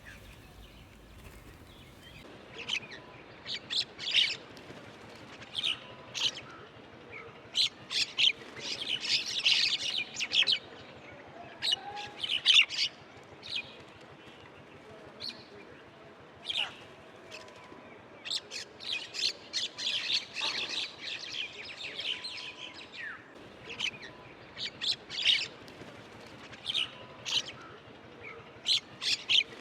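Several small birds chirping and calling in short, high bursts, thicker in places, over a faint steady outdoor background.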